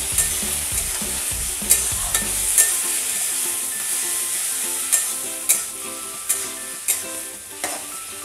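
Potatoes, tomato and ground spice pastes sizzling in oil in a metal kadai while the masala is being sautéed. A flat spatula stirs them, scraping and knocking against the pan several times at uneven intervals.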